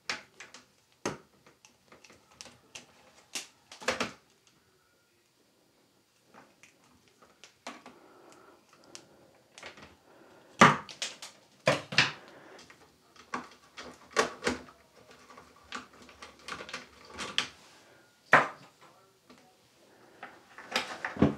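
Hand wire strippers clicking and snapping as they cut and pull insulation off red and black wires, in irregular sharp clicks with a few louder snaps and a short quiet pause after the first few seconds.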